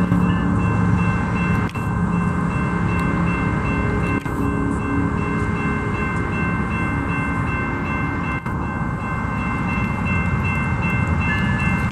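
Train running past, with a low engine drone that fades about halfway through and several steady high-pitched tones throughout.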